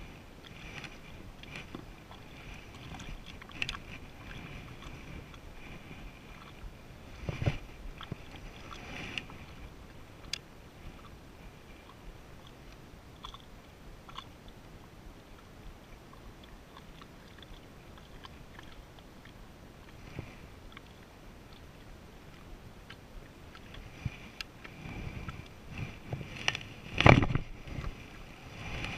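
Handling sounds on a kayak: scattered small clicks from the rod and baitcasting reel and knocks on the plastic hull. There is a louder knock about seven seconds in and the loudest thump near the end.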